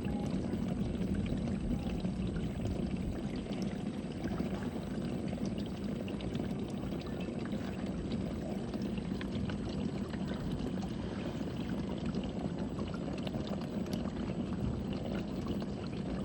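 Samsung dishwasher running: water rushes and splashes inside the tub over a steady low hum, starting abruptly and holding even throughout.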